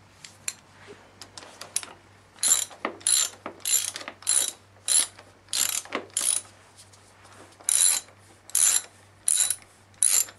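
Socket ratchet clicking in about a dozen short runs, one per back-stroke of the handle, as a 14 mm brake caliper bolt is worked loose. The strokes start about two and a half seconds in, with a short pause around the middle.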